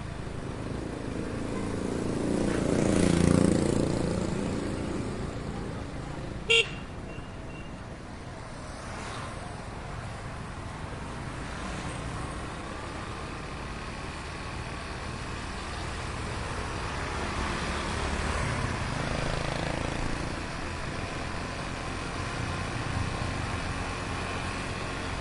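Heavy street traffic heard from a moving ride. A motor vehicle passes close about two to four seconds in, the loudest moment. A short, sharp horn toot follows a few seconds later, with engines passing steadily after it.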